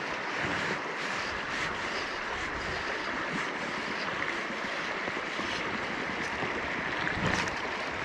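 Shallow river water running steadily over a gravel and stone bed.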